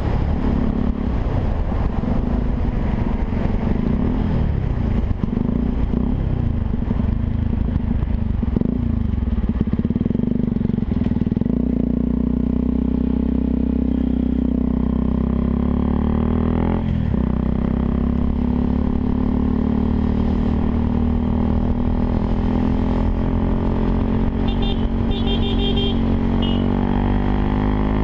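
Yamaha WR 125 R's single-cylinder four-stroke engine running through a Takkoni aftermarket exhaust, its pitch rising and falling repeatedly over the first ten seconds, then mostly holding steady.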